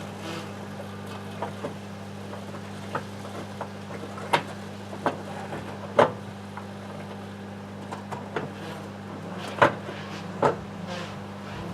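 Irregular sharp cracks and pops, about eight of them, the loudest about six and nine and a half seconds in, over a steady low electrical hum: the microwave's glass turntable plate cracking apart from the heat.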